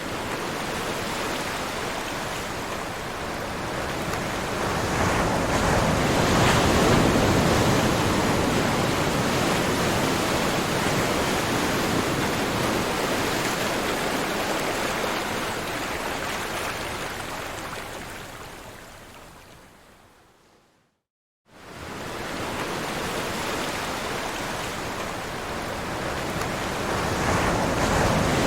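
Ocean waves breaking in a steady surf rush that swells and slowly fades. About three-quarters of the way in it dies away to silence for a moment, then comes back and builds again.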